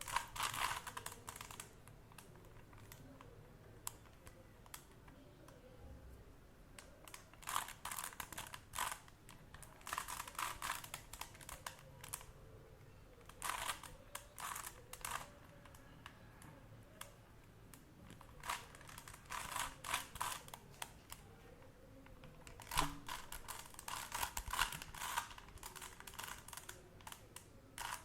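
A 3 by 3 Rubik's Cube being turned by hand: flurries of quick plastic clicks as the layers are twisted, about six bursts with quieter pauses between them while the solver works out the next moves.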